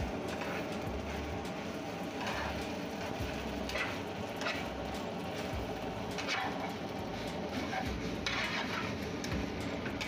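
A metal cooking utensil scraping and clinking against a pan of cooked chow mein noodles several times, over a steady background noise.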